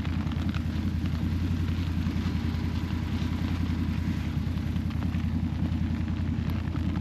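Steady low rumble without a break.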